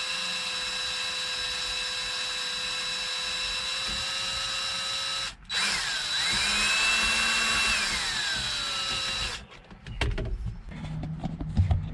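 Power drill driving a screw to pull a cracked plastic piece together and hold it. It runs steadily for about five seconds, stops briefly, then runs again, speeding up and then slowing before it stops. Light handling sounds come near the end.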